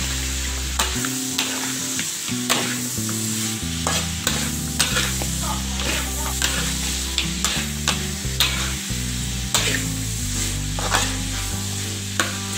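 Duck pieces sizzling in a hot wok while a metal spatula stirs and turns them, with frequent sharp clacks and scrapes of the spatula against the wok.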